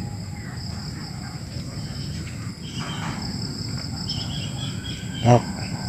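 Steady high-pitched insect chorus holding two high tones, over a low, even rumble.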